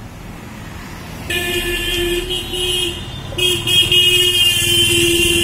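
Vehicle horn sounding in two long blasts: the first starts about a second in and lasts nearly two seconds, the second follows after a short break and is slightly louder.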